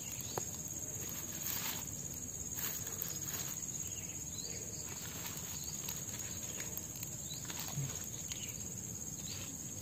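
Steady high-pitched insect chirring, with a few faint clicks scattered through.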